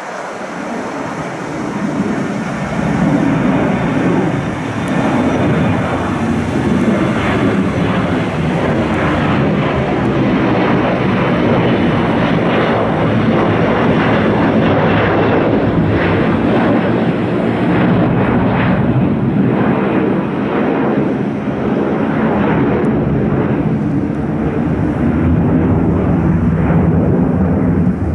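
Boeing 737-500's twin CFM56-3 turbofan engines as the jet passes low overhead and climbs away on a missed approach: a loud, steady jet rumble that builds over the first couple of seconds, with a crackling edge in the middle stretch.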